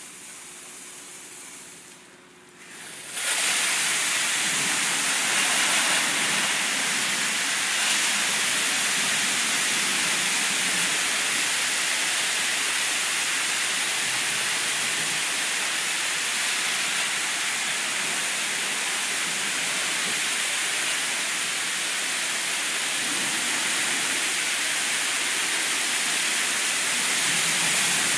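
PDQ LaserWash touchless car wash spraying a car with high-pressure water jets, a steady loud hiss. It is fainter at first, drops briefly, then comes on full about three seconds in and holds.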